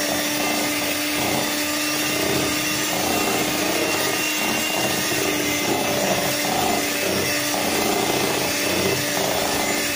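Small electric hand mixer running steadily at one pitch, its beaters churning through thick brownie batter in a bowl.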